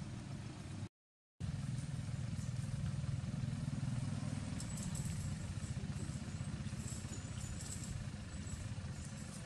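An engine idling steadily with a low hum. The sound cuts out completely for about half a second about a second in, then resumes.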